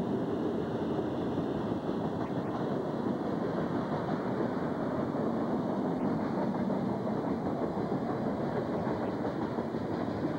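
Freight train cars rolling past close by: a steady rumble of steel wheels on the rails.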